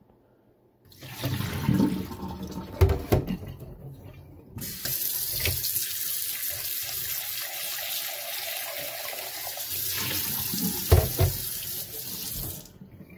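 Water sloshed out of a glass measuring cup into a stainless steel sink, with a few knocks of the glass. Then a faucet runs a steady stream into the cup for about eight seconds, stopping suddenly near the end.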